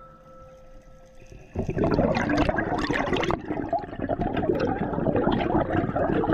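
Scuba diver's exhaled bubbles from the regulator, bubbling and gurgling loudly underwater. They start suddenly about one and a half seconds in after a quiet start.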